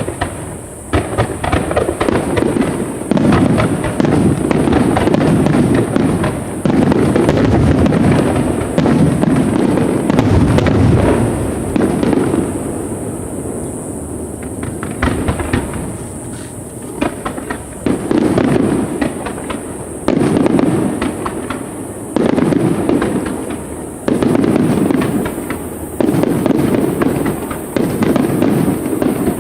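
Aerial fireworks bursting in a rapid, near-continuous barrage: deep booms overlapping with crackling, with loud surges about every two seconds in the latter half.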